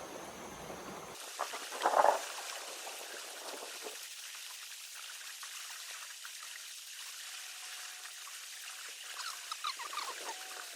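Water splashing briefly about two seconds in, then a faint steady hiss with light trickling and small crackles.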